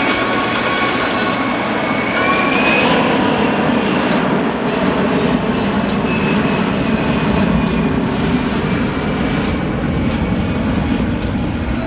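Boeing C-17 Globemaster III's four turbofan engines running in flight: a steady loud jet noise with turbine whine, one whine rising in pitch about two to three seconds in.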